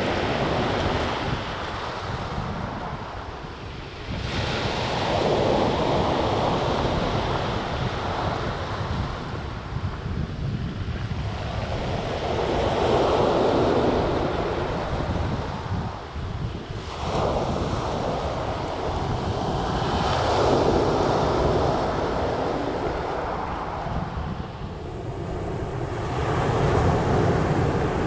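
Small waves breaking and washing over a pebble beach, the surf swelling and falling back in slow surges every several seconds.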